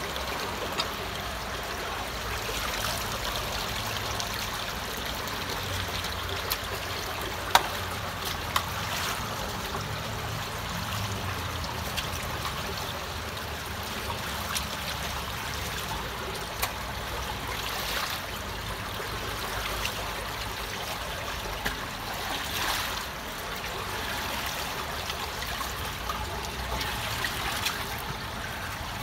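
Water draining through a partly unclogged culvert, a steady trickling flow, with scattered sharp clicks and knocks; the loudest about seven and a half seconds in.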